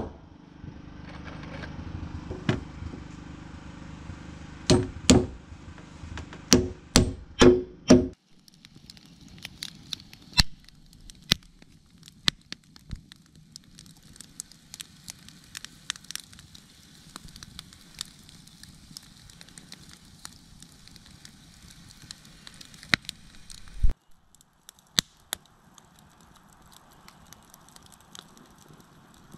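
A run of hammer blows nailing down spruce floorboards over a steady low hum. About eight seconds in, a wood campfire takes over, crackling with scattered sharp pops that thin out near the end.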